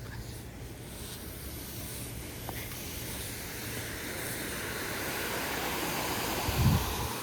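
Steady rush of water pouring through a lake spillway, growing slightly louder, with a short low thump near the end.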